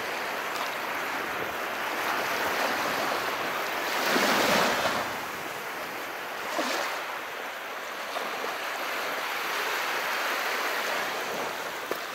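Calm sea: small waves washing in continuously, with one louder wave breaking about four seconds in and a smaller one a couple of seconds later.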